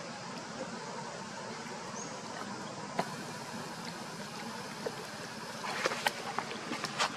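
Steady outdoor background hiss, with a single sharp click about three seconds in and a run of light taps and clicks near the end.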